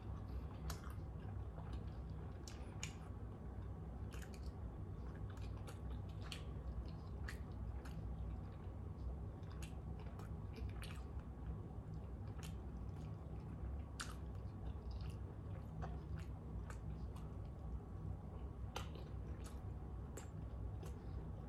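A person chewing a mouthful of foot-long coney hot dog with the mouth closed: soft, irregular wet mouth clicks and smacks over a steady low hum.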